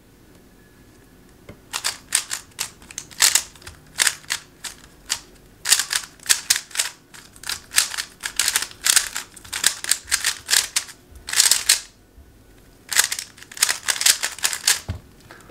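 Moyu RS3 M MagLev magnetic 3x3 speed cube turned fast through a solve: rapid runs of plastic clicking and clacking as the layers turn and the magnets snap them into place. The turning begins after a quiet second or two and stops briefly near the end before a last run of turns.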